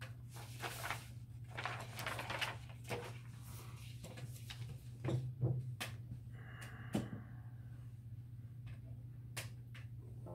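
Sheets of paper rustling and being handled, then several knocks and bumps, the loudest around the middle, as things are set down and a nylon-string guitar is picked up. A steady low hum runs underneath.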